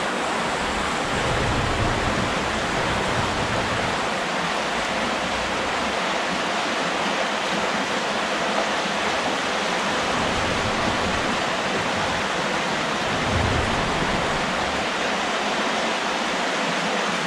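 Steady rush of a shallow creek's current flowing over rocks, with a few low rumbles underneath.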